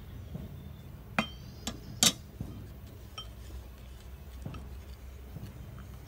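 Metal kitchen knife clinking against the rim of a small sauce bowl: three sharp, ringing clinks about a second in, the third the loudest. After them come a few faint ticks of a spoon stirring the dipping sauce in the bowl.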